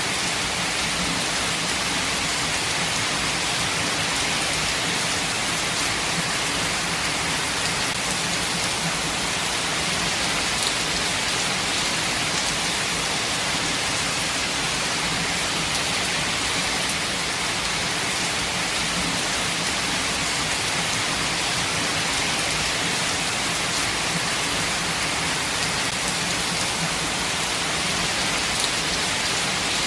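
Steady rain falling, an even hiss of rainfall with scattered faint drop ticks and no let-up.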